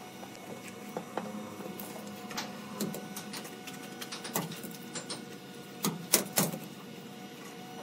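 Irregular light clicks and knocks from brick and hand-tool work on a building site, with a cluster of sharper knocks about six seconds in.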